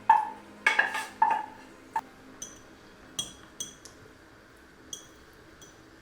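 Kitchen utensils clinking against dishes: a run of evenly spaced ringing knocks in the first second or so, then lighter, sharper clinks at irregular intervals.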